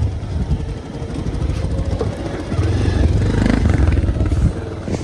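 Bajaj Pulsar 220F's single-cylinder engine running as the motorcycle is ridden, with a low rumble that grows louder about two and a half seconds in.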